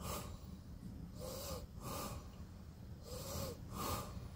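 A person breathing close to the microphone: a few slow, soft breaths in and out, some with a faint whistle.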